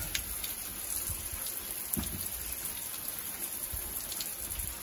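Water pouring from two overhead rain showerheads and splashing onto bodies and the floor, a steady hiss of spray, with a brief knock about two seconds in.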